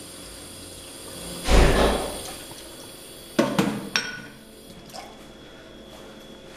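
Washing up at a kitchen sink: a short rush and splash of water about a second and a half in, then a quick run of sharp clinks and knocks as dishes are handled and set down.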